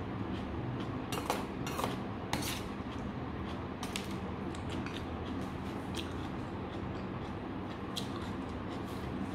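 A metal spoon scraping and clinking against a stainless steel bowl of rice in a few short strokes, over a steady low hum.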